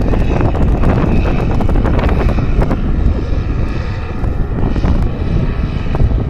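Wind rumbling on the microphone, with the steady drone of paramotor engines flying overhead.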